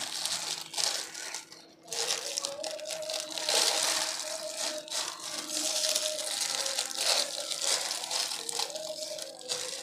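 Thin plastic bag crinkling while a metal spoon scrapes and digs soft butter out of it, with small clicks and rustles in irregular bursts.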